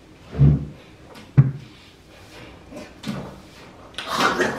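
A boucle dining chair taking someone's weight as she sits down at a glass-topped table: a dull low thump, then a sharp knock about a second later and a lighter bump after. A louder sound comes in near the end.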